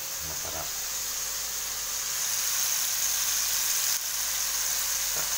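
Tomatoes sautéing in hot oil in a wok: a steady sizzle that grows louder about two seconds in.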